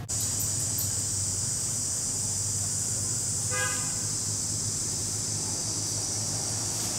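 Steady high-pitched drone of cicadas over a low steady hum, with one brief horn-like toot about halfway through.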